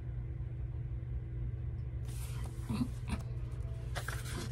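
Steady low background rumble, with faint rustling and handling of a coloring book in the second half.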